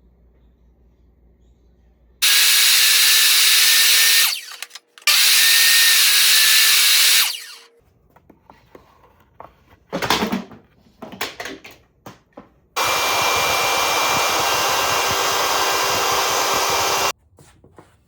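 A woodworking power tool running in three bursts of a few seconds each, with a steady high whine; the first two come close together. Between the second and third bursts come a run of knocks and clatters.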